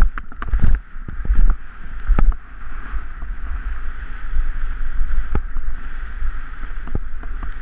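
Dog scooter rolling fast over a bumpy grass trail: a steady rolling rush with wind buffeting the microphone, and scattered sharp knocks and rattles as the scooter jolts over the ground.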